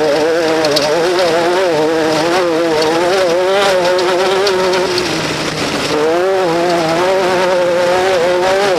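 Off-road race vehicle engine running hard, its pitch wavering up and down with the throttle. It eases off briefly about five seconds in, then climbs again.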